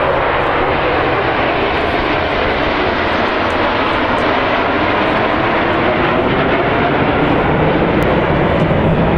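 Steady jet noise from a formation of nine Canadair CT-114 Tutor jet trainers flying overhead, an even rushing drone with no change in level.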